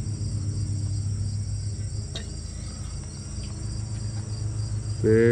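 Steady high-pitched chirring of insects over a low steady hum, with one faint click about two seconds in.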